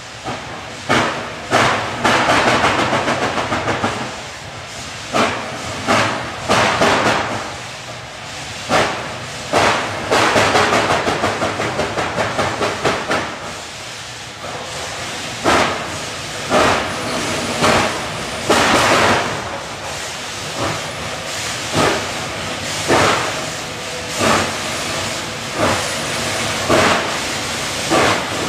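Reading T-1 4-8-4 steam locomotive No. 2102 working under load: loud exhaust chuffs from the stack, about one a second, with runs of quicker, softer beats and a steady hiss of steam between them.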